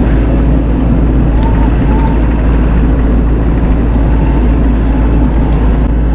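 An engine running steadily and loudly close by, with a heavy low rumble and a faint steady whine over it.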